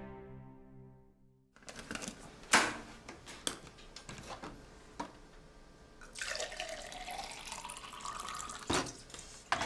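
Music fades out in the first second. Then a cup is knocked down on a table a few times, and water is poured from a thermos flask into a tall cup, the pour rising in pitch as the cup fills. It ends with a knock as the flask is set down.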